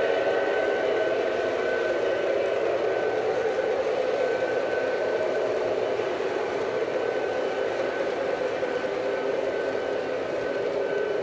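Model train freight cars rolling past on three-rail O-gauge track: a steady rumble of metal wheels on the rails, with a thin, steady high whine running underneath.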